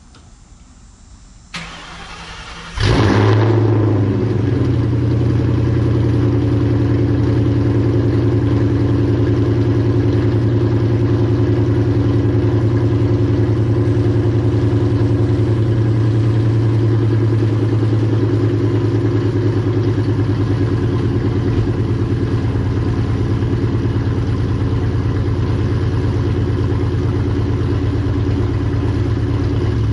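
Ford Mustang with a Borla ATAK cat-back exhaust starting. A click is followed about three seconds in by the engine firing with a loud flare, which settles into a steady idle.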